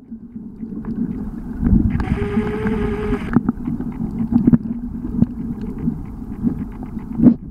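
Muffled underwater noise picked up by a camera held in the sea: a dull rushing of water with scattered knocks and clicks. About two seconds in a buzzing tone sounds for just over a second.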